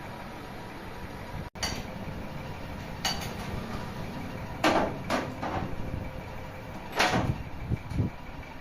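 A handful of separate knocks and clunks, about six, over a steady workshop hum, with a brief cut-out about one and a half seconds in.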